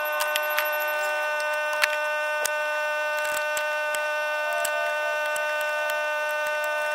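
A steady machine drone with a stack of even tones, from the water department's equipment at a burst water main. Over it come scattered small clicks and ticks of needle-nose pliers working a hose clamp.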